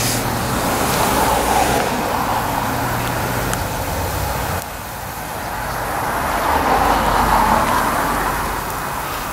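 Small homemade vertical steam engine running on steam from its wood-fired boiler, with a steady hiss of steam that swells and eases. A low hum under it stops abruptly about halfway through.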